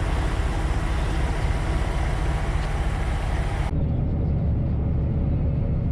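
Concrete pump truck driving: a steady low engine and road rumble. About three and a half seconds in, the higher hiss drops out abruptly while the low rumble carries on.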